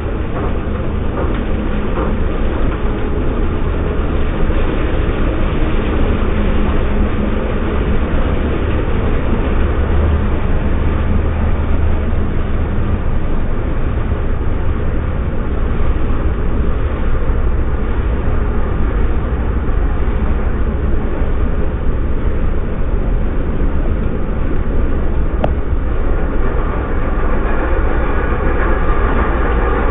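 Combine harvester running right over the recording phone: a loud, steady rumble of engine and threshing machinery.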